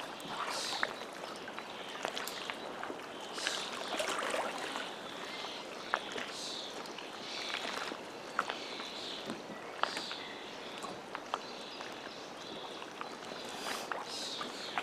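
Shallow lake water splashing and lapping around people wading in it, in a series of short splashes, with scattered small clicks and knocks.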